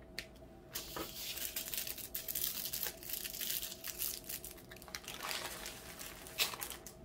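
Small plastic bags of diamond painting drills crinkling and rustling as they are handled and sorted, a dense crackle that starts about a second in and stops just before the end.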